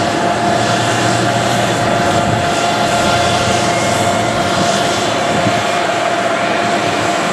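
Jet airliner engines running steadily: an even rush of noise with one constant whine and no rise or fall.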